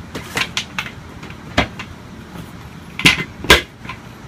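Plastic caster wheels being pushed into the sockets of an office chair's base: a series of sharp clicks and knocks, with the two loudest close together near the end.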